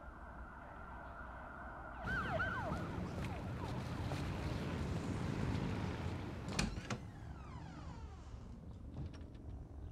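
Dramatic film sound-design effect. A held high tone gives way about two seconds in to a sudden swell of noise with quick falling sweeps. A sharp hit comes about two-thirds of the way through, followed by more falling sweeps as it dies down.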